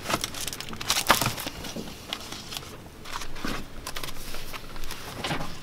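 Comic books and loose papers rustling and crinkling as they are shuffled through by hand in a plastic tub, with irregular light clicks and knocks.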